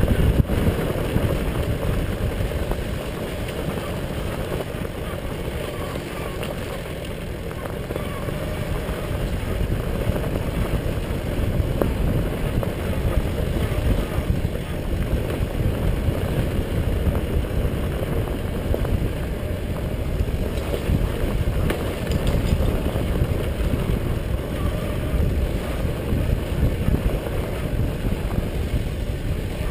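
1982 Tomos A3MS moped's single-cylinder two-stroke engine running under way, heard as a steady low rumble mixed with road and wind noise.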